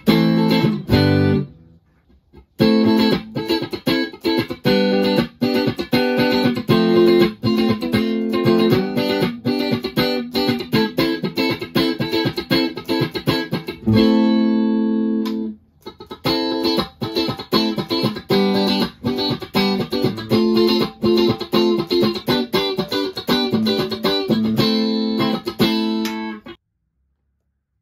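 Electric guitar played through a Valeton GP-200JR multi-effects processor on a clean preset: a chord, then quick runs of picked notes, a held chord about halfway, and more runs. It stops about a second before the end.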